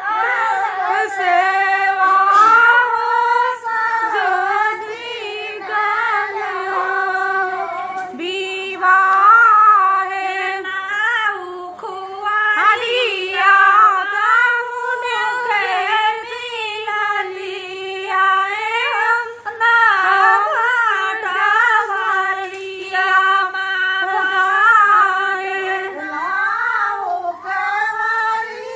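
Women singing a folk song: a high, wavering melody of long held notes with short breaks for breath.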